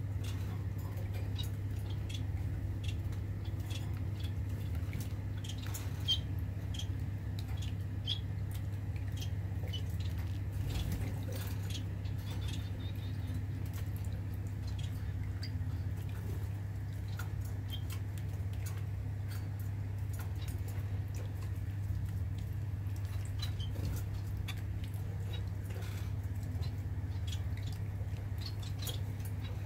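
Electric pet drinking fountain's pump humming steadily with water trickling from the spout, while society finches give many short, high chirps throughout.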